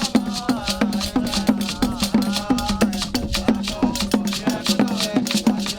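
Upbeat music with a steady beat: a shaker on every stroke, low drum notes that drop in pitch on each beat, and a melody above.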